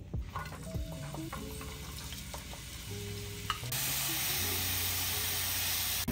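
Chopped onion sizzling in hot olive oil in a saucepan, stirred with a wooden spoon. Before it there are a few light clicks, then the sizzle comes in suddenly about two-thirds of the way through and holds steady.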